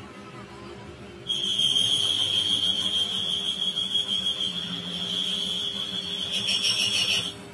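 Lathe turning a truck crankshaft journal. About a second in, the cutting tool sets up a steady high-pitched squeal, which stops near the end. Under it runs the lathe's steady low hum.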